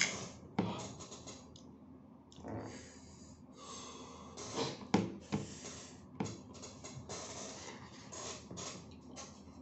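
Close eating sounds: fingers working rice and sardines on a plate, chewing and lip smacks with breathing, in irregular short bursts with a sharper click about five seconds in.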